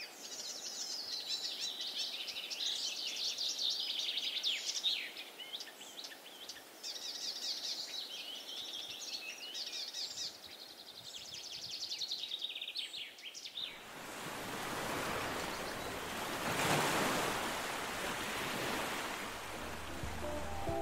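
Songbirds chirping and twittering busily. About fourteen seconds in the birds stop and a rushing, surf-like noise takes over, swelling for a few seconds before easing off.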